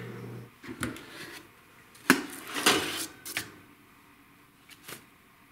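Clacks and light rattles of a toaster oven and its foil-lined baking tray being handled as the tray of cookies is taken out, the sharpest knock about two seconds in.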